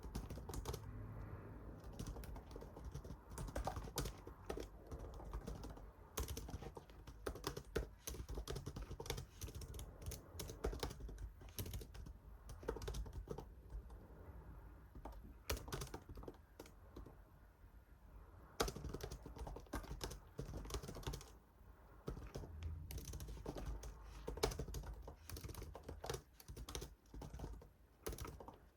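Typing on a computer keyboard: quick runs of keystrokes in irregular bursts with short pauses between them.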